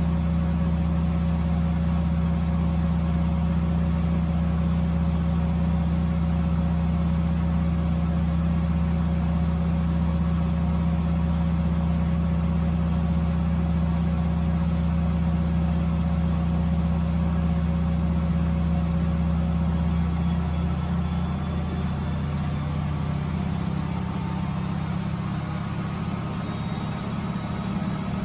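Miele W Classic washing machine spinning, giving a steady motor hum. About twenty seconds in, the hum shifts in pitch and gets slightly quieter.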